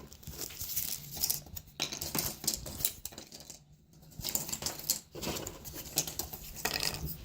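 Jigsaw puzzle pieces being handled: irregular light clicks, taps and small rattles as pieces are picked up, tried and pressed into place on a hard surface.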